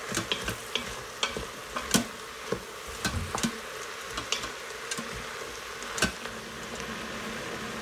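Spoon stirring raw chicken pieces and chopped vegetables in the stainless steel inner pot of an Instant Pot on sauté: a steady light sizzle with scattered clicks and scrapes of the spoon against the pot.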